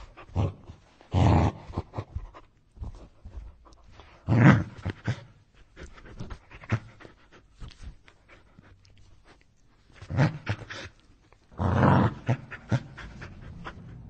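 An aggressive dog snarling and growling in short, harsh bursts, the loudest about a second in, at four and a half seconds and near the end, with quieter rasping breaths and snaps between them.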